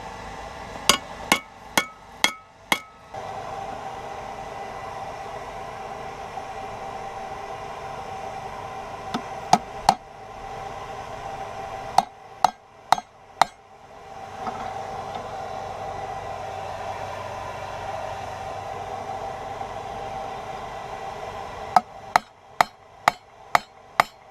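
Blacksmith's hammer striking hot rebar on an anvil in short bursts of three to seven sharp, ringing blows, with the steady hum of the forge running between the bursts.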